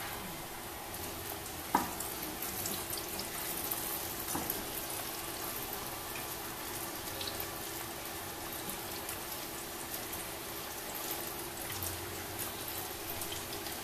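Chicken pieces deep-frying in hot oil in an electric deep fryer: a steady hiss with fine crackling from the bubbling oil. A single short knock sounds about two seconds in.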